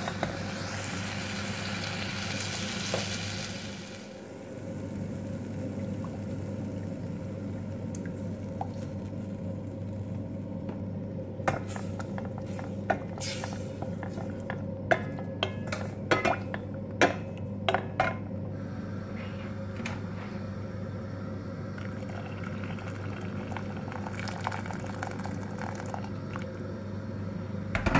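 Fish and spice paste sizzling in a stainless steel saucepan for the first few seconds, the sizzle dying down about four seconds in as a milky liquid goes into the pan. A wooden spoon then stirs and knocks against the pan, with a run of sharp knocks in the middle, over a steady low hum.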